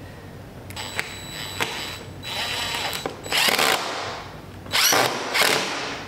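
Cordless drill driving a screw into the wooden door jamb to fasten a door-lock striker plate. The motor runs once for about two seconds, then in three short, louder bursts.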